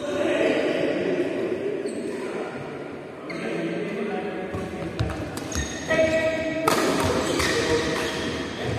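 Badminton rally in a large, echoing hall: from about halfway in, several sharp racket strikes on the shuttlecock, with voices in the background before and during it.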